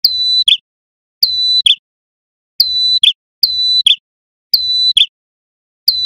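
Male ashy tailorbird (prenjak kepala merah) calling loudly. Six times, at intervals of about a second, it gives a clear whistled note that dips slightly and then holds steady, each ending in a short, sharp lower note.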